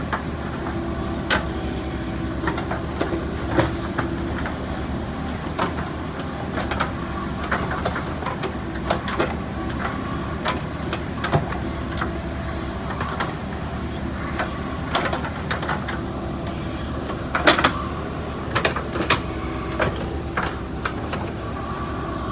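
JCB backhoe loader working: its diesel engine runs steadily while frequent sharp clanks and knocks come through, with a burst of louder knocks about three-quarters of the way through.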